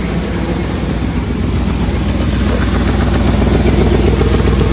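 2003 Ford F350 pickup's engine idling steadily, growing a little louder about halfway through.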